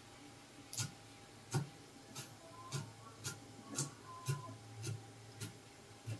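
A cleaver chopping on a round wooden chopping block: about ten evenly paced knocks, a little under two a second.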